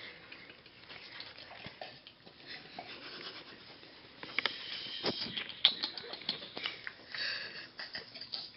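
Hushed room with stifled snickers and sniffs, and scattered small clicks and rustles, most of them in the second half.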